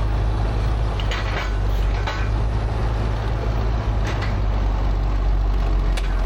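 Heavy vintage construction machine running, a steady low engine rumble, with a few short sharp noises about one, two, four and six seconds in.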